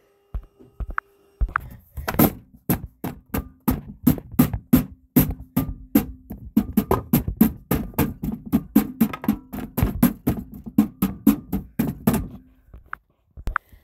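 Fight sound effects: a rapid string of sharp knocks and hits, several a second, starting about two seconds in and stopping shortly before the end, over a faint low hum.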